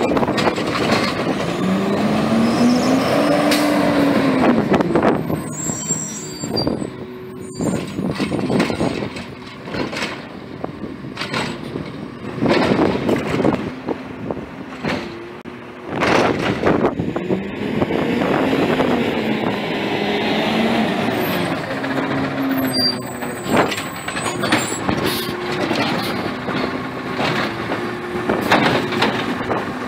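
CNG-powered Bridgeport automated side-loader garbage truck working: the engine revs and a hydraulic whine rises and falls twice as the arm cycles. Carts clank sharply and air brakes hiss in between.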